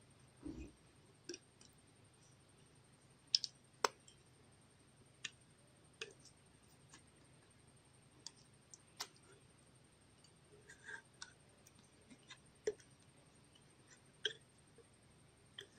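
Putty slime being mixed and squeezed by hand, giving irregular sticky clicks and pops spaced every second or so, with a dull low thump about half a second in.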